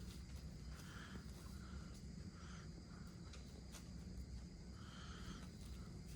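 A kitten scratching and scraping in cat litter, faintly, in several short bouts with a couple of small clicks of grains between them, over a steady low room hum.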